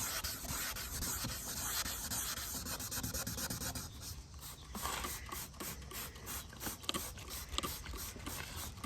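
Abrasive pad sanding the oxidised plastic lens of a headlight, a steady rubbing scrape that breaks into shorter separate strokes about halfway through.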